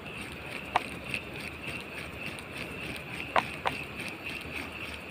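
Flowing river water with a steady high-pitched hum over it, and three short sharp chirps: one under a second in, then two close together a little past three seconds.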